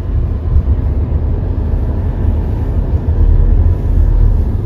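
A car driving along a road: a steady low rumble of engine and tyres, somewhat heavier about three seconds in.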